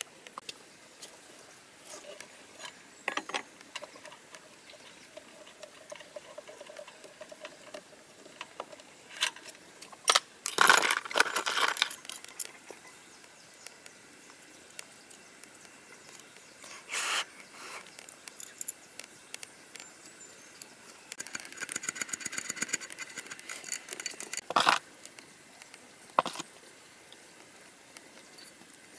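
Metal clinks, taps and knocks of small diesel-engine parts and hand tools being handled during a teardown, with a few louder knocks and a quick run of rapid clicking a little past the middle.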